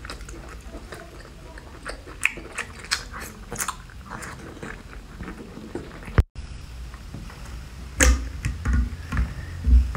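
Close-miked chewing and wet mouth clicks of someone eating chili-powder-coated braised octopus. About six seconds in there is a brief cut to silence, and near the end several low thumps with handling noise follow.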